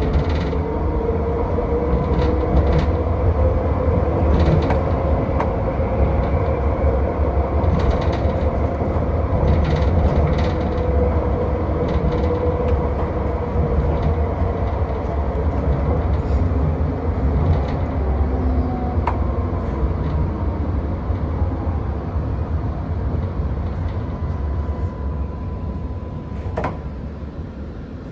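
Alstom Citadis X05 tram running on the rails: a steady low rumble with a motor whine that rises and falls. The sound eases off over the last few seconds as the tram slows, with a couple of sharp clicks.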